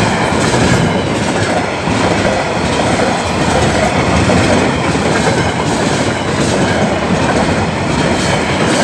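A train passing over a level crossing at close range, with a steady loud rumble of the wagons and repeated clacks of the wheels over the rail joints. It begins to fade just as the last of it goes by.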